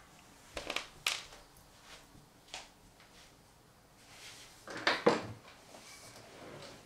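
A few footsteps on a room floor, then a louder cluster of knocks and rustling about five seconds in as a person sits down in a swivel office chair at a desk.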